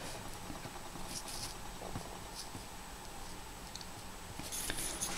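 Pencil scratching on paper along a steel ruler in a few short, faint strokes, the strongest near the end.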